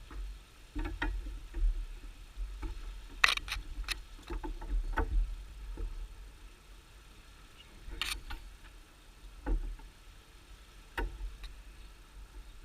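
Scattered knocks and clicks of hive parts being handled, over a fluctuating low rumble; the sharpest knocks come about three seconds in and again near eight seconds.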